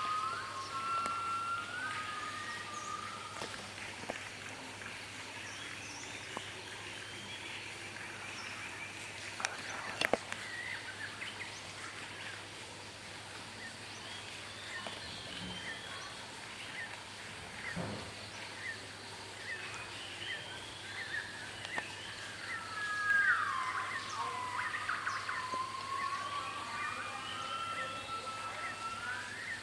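Yellow-cheeked crested gibbons calling in gliding whoops: a short rising phrase at the start, then a longer, louder series in the second half that swoops down and climbs again. Forest birds, including barbets and bulbuls, chirp throughout, and there is one sharp click about ten seconds in.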